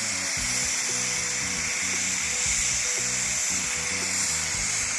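Background music with a steady melody in the low range, over the continuous hiss of snowmaking guns spraying.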